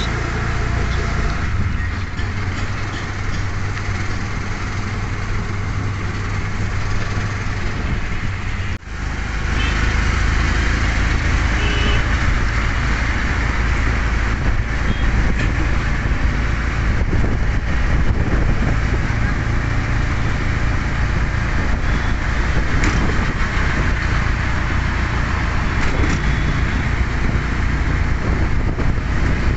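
Auto-rickshaw engine running and road noise, heard from the passenger seat inside the open cabin as it drives, with other traffic around. A brief dropout about nine seconds in, after which the sound is a little louder.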